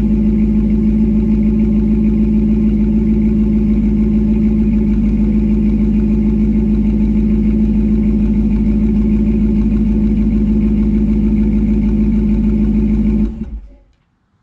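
Exhaust of a 2009 Ram 1500's 5.7-litre Hemi V8 idling steadily after a cold start, heard at the dual tailpipes. Near the end the engine is shut off and the sound dies away within about a second.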